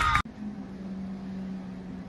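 A loud sound with several falling pitches cuts off abruptly about a quarter second in. It is followed by a steady low hum with a faint hiss.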